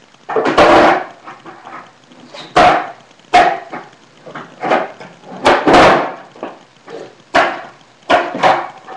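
A skateboard popping and clattering on a concrete floor during flip-trick attempts: about a dozen sharp knocks and slaps from the tail, deck and wheels hitting the ground. The longest clatter comes near the start.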